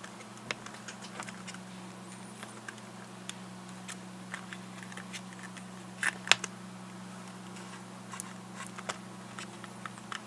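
Small plastic clicks and taps from a GPS unit's casing, touchscreen and plastic tab being handled and fitted back together, with a louder pair of clicks about six seconds in, over a steady low hum.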